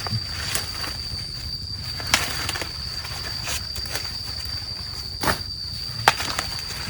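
A few sharp snaps or cracks, the clearest about two seconds in and twice near the end, over a steady thin high-pitched whine and a low rumble.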